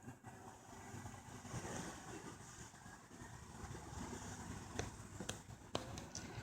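Faint low outdoor background rumble, with three short sharp clicks about five to six seconds in.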